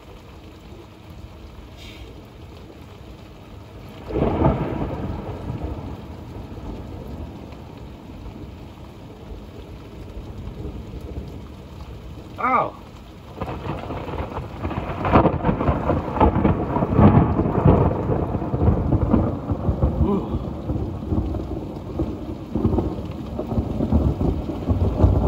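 Thunderstorm: steady rain falling with two peals of thunder, a sudden clap about four seconds in that rumbles away, then a longer, louder rumble building from about halfway and lasting through the rest.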